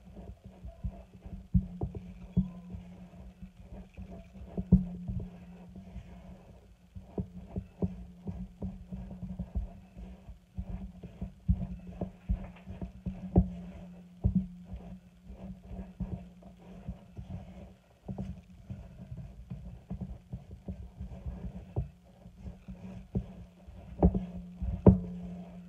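Spatula stirring flour into a thick cookie batter in a stainless steel bowl, with uneven knocks and scrapes against the bowl's side, over a steady low hum.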